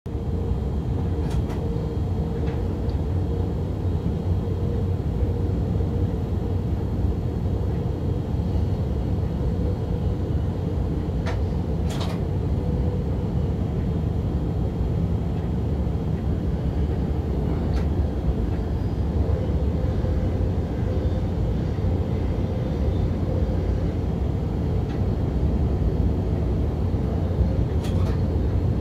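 Stadler GTW diesel-electric train running at speed, heard inside the driver's cab: a steady low rumble with a faint hum, broken by a few sharp clicks.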